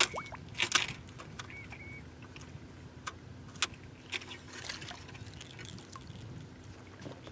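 Scattered sharp clicks and light metallic rattles of fishing rods, reels and rigged tackle being handled as baited drag lines are put out, over a faint steady low hum.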